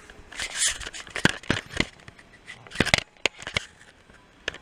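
Handling noises from work inside a desktop PC case: a run of irregular clicks, taps and rustling scrapes of cables and plastic parts, loudest in the first three seconds.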